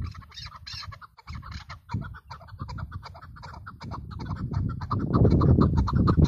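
Caged chukar partridge calling, a rapid run of short chuck notes at about five or six a second. A loud low rumble builds up under the calls near the end.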